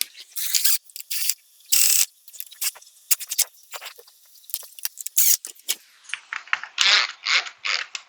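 A screw being driven by hand with a screwdriver into the plastic retaining tab of an in-wall cable box: a run of short, irregular clicking and scraping strokes.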